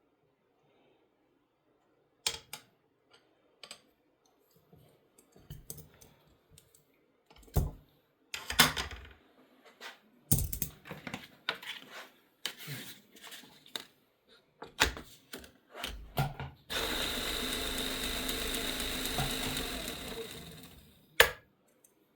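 Handling clicks and knocks as a pocket knife is clamped into a knife-sharpening jig, then a steady mechanical whir for about four seconds near the end, cut off by one sharp click.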